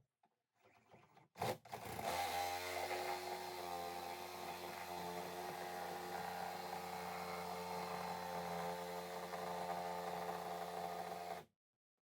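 A power tool's motor starts with a sharp knock about a second and a half in, runs at a steady pitch for about nine seconds, then cuts off abruptly.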